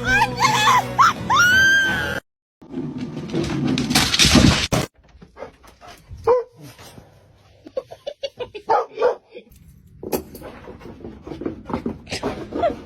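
A dog vocalising in bursts, with barks and whines, and music in places.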